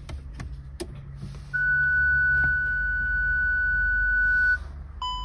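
An electronic beep: one steady high tone held for about three seconds, then a short lower beep near the end, over a faint low hum.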